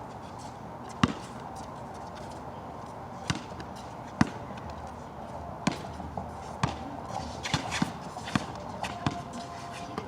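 A basketball bouncing on a wet court: about nine sharp bounces at uneven spacing as it is dribbled and played, the loudest about a second in.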